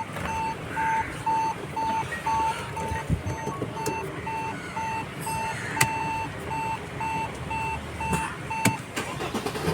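Mercedes ML 350 CDI's dashboard warning chime beeping over and over, a steady high tone about two to three times a second that pauses near the end, with the started engine running underneath and a few sharp clicks.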